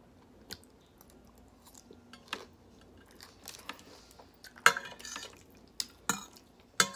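Someone chewing a mouthful of salad, with sharp clicks and scrapes of a metal fork against a plate, the loudest near the end.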